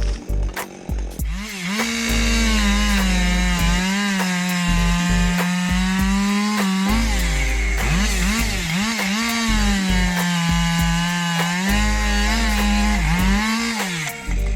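Two-stroke chainsaw running at high revs while cutting wood, coming in about a second and a half in. Its note repeatedly sags and recovers as the chain bites under load. Background music with a pulsing bass underneath.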